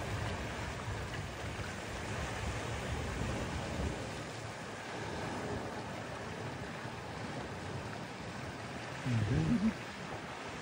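Sea water washing and lapping at the shore, with wind buffeting the microphone, heaviest in the first few seconds. A short wavering voice-like sound comes near the end.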